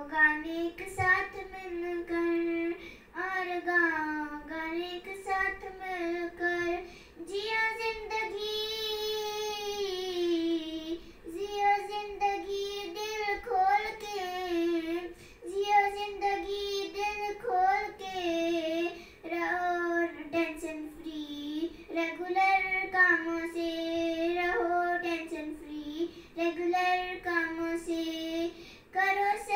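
A young girl singing a slow song solo with no instruments, in long held notes that bend up and down, broken by short pauses for breath.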